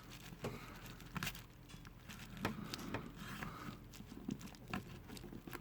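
Thin plastic pry tool scraping and clicking along the edge of an iPhone screen as it is worked open: faint, scattered small clicks and scrapes at irregular intervals.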